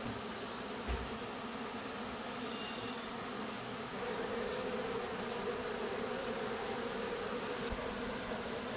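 A steady buzzing hum that grows a little stronger about four seconds in.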